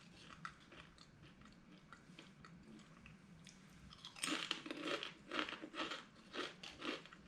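A person chewing a crunchy spicy potato snack with mouth open to the microphone: faint crunches at first, then from about four seconds in a steady run of louder crunches, about two to three a second.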